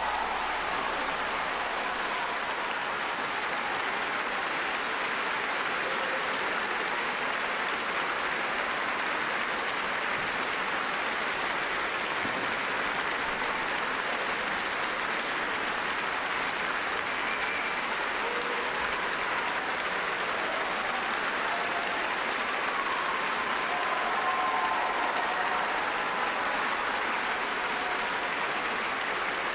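A large concert-hall audience applauding at the end of a performance: dense clapping that holds steady without letting up.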